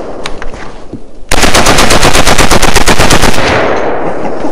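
AK-pattern rifle firing a fully automatic burst of about two seconds, at roughly ten shots a second, starting a little over a second in. The burst ends in a long echoing tail. Before it, the echo of an earlier shot dies away.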